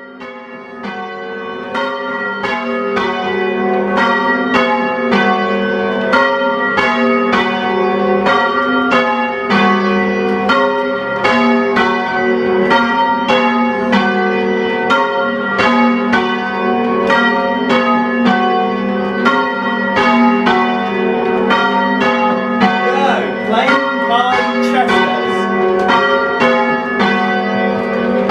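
Church bells rung full-circle in change ringing on a small ring, striking one after another in a steady rhythm of about two strokes a second. The ringing starts at the outset and builds in loudness over the first few seconds.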